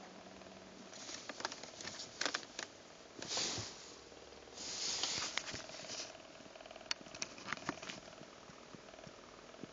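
Faint, fast purring from behind the dashboard of a BMW E46 330i, a rapid flutter that comes and goes. Over it are brushing rushes and sharp clicks and knocks from the phone rubbing against the dash trim.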